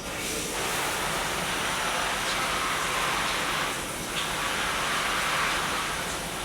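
Running water, coming on suddenly as a steady rush, with a brief dip about four seconds in.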